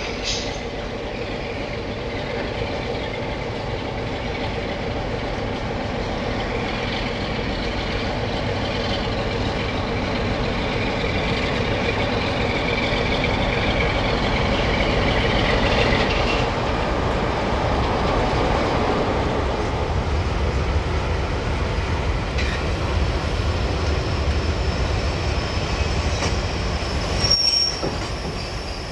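A British Rail Class 47 diesel locomotive hauling a long train of open box wagons through a curved station: a low engine drone and wagon rumble, with high wheel squeal on the curve, growing louder as the train passes. Near the end a cut brings a second Class 47 with a single high, steady wheel squeal.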